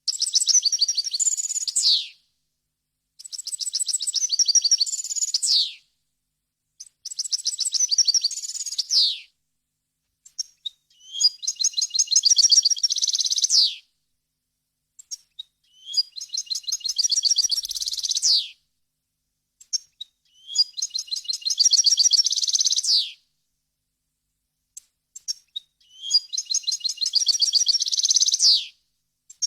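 European goldfinch singing: about seven separate song phrases of two to three seconds each, with short pauses between them. Each phrase is a fast run of high twittering trills that ends in a quick falling note.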